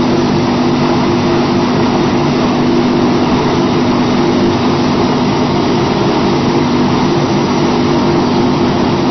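Briquetting machine running steadily: a loud, even mechanical drone with a constant low hum.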